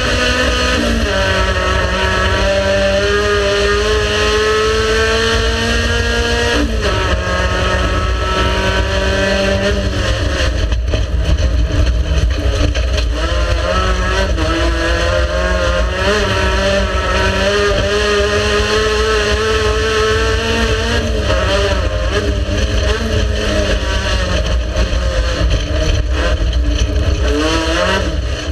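Race car engine running hard under load. Its pitch climbs slowly and drops sharply at gear changes, clearly once about seven seconds in, and swings up and down through the rest of the run.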